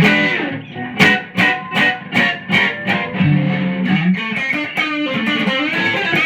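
Groves Slimeline Deluxe electric guitar, fitted with a Bareknuckle Blue Note P90 neck pickup and a Seymour Duncan P-Rails bridge pickup, played through an amplifier. A held chord dies away, then single notes are picked one after another, two to three a second, turning into busier playing about halfway through.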